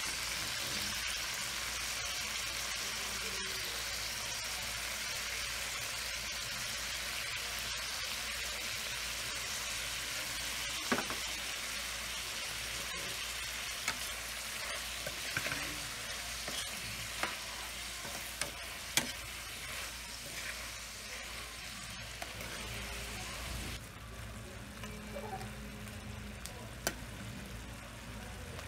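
Whole shrimps sizzling in melted butter in a frying pan, with occasional clicks and scrapes of a utensil stirring them. The sizzle drops quieter about 24 seconds in.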